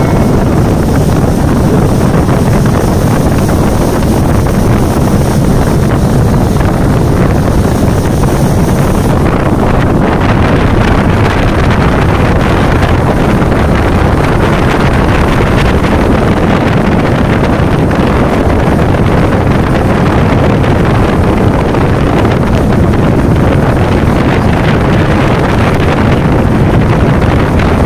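Speedboat engine running steadily at speed, mixed with heavy wind buffeting the microphone and the rush of water and spray. A thin high whine sits on top and stops about nine seconds in.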